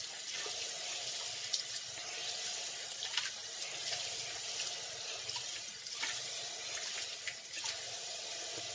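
Water running from a tap into a bathroom sink, with a few short splashes as water is scooped up by hand and splashed onto the face.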